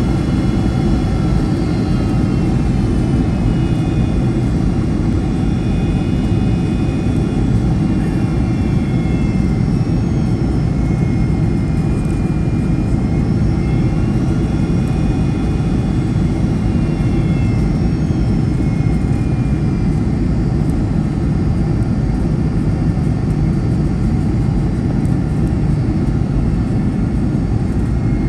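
Cabin noise inside a Boeing 757-200: a steady, loud low rumble of jet engines and airflow, with faint whining tones that slowly drift up and down in pitch.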